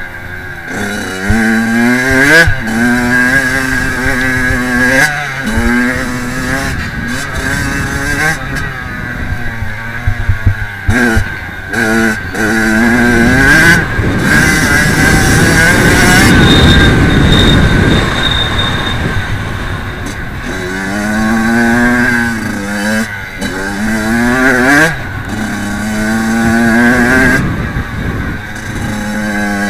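Kawasaki KX85 two-stroke motocross engine being ridden hard, its pitch rising again and again through the revs and dropping back as the throttle is rolled off and gears change. About halfway there is a few-second stretch of dense rushing noise.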